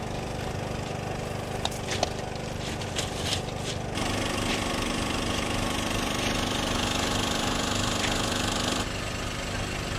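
An engine idling steadily, with a few light clicks in the first few seconds. About four seconds in, a louder hiss joins the hum for about five seconds, then drops away.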